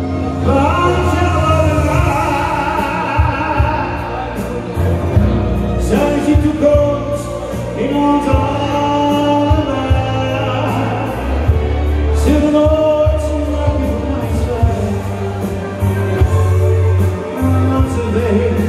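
Live band music: bass and drums keep a steady beat under a singing voice.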